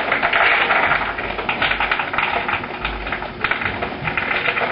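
Frozen peas being poured, a dense, continuous rattle of many small hard clicks.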